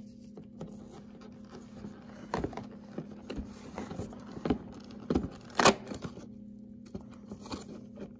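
Fingers scratching, tapping and prying at the perforated cardboard door of an advent calendar until it tears open, with a few sharper taps and clicks, the loudest a little past the middle. A faint steady hum underneath.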